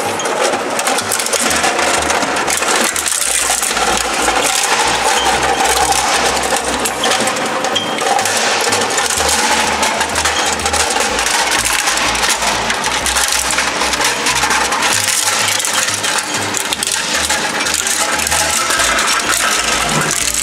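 Twin-shaft shredder's toothed steel cutters crunching through a hard plastic casing: a dense, continuous crackle and clink of plastic cracking and fragments rattling against the blades, over the steady running of the machine.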